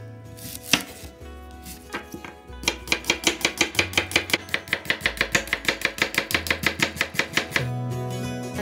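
Chef's knife slicing a red onion on a bamboo cutting board: a single knock of the blade under a second in, then a run of quick, even cutting strokes, about six a second, that stops shortly before the end. Soft background music underneath.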